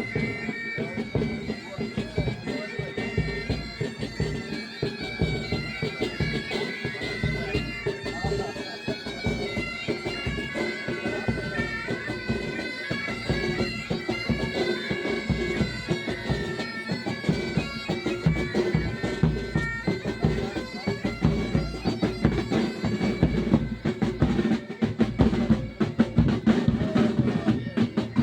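Military pipe band playing: bagpipes sounding a melody over their steady drones, with drums beating time underneath.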